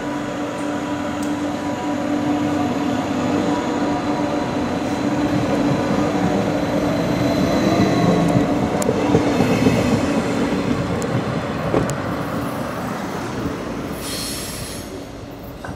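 Stadler GTW electric multiple unit (Thurbo RABe 526) passing close by: a steady rolling rumble with a hum that grows louder as the train draws level and then fades. Near the end a brief high-pitched wheel squeal is heard.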